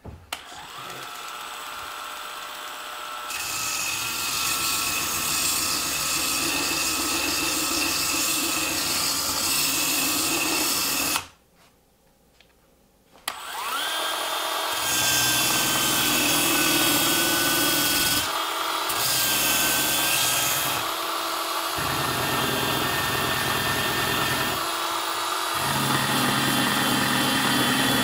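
Ryobi 18V cordless power file, a narrow half-inch belt sander, running on high speed and sanding the edge of a 2x4. The motor whines up to speed, and the sound grows louder as the belt meets the wood. It stops about 11 seconds in, starts again two seconds later, and runs on.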